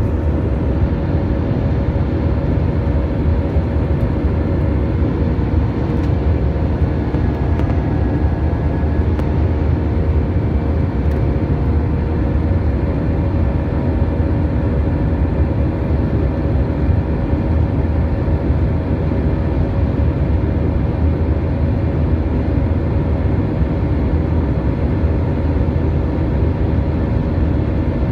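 Steady cabin noise of a jetBlue Airbus A320 climbing after takeoff, heard from a window seat beside its IAE V2500 turbofan: a loud, even engine and airflow noise with most of the weight low down, and a few steady humming tones on top.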